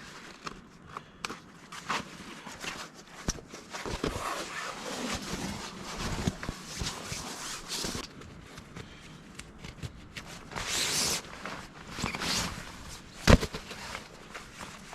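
Irregular rustles, scrapes and short knocks, with a brief hiss around the middle and one sharp knock near the end.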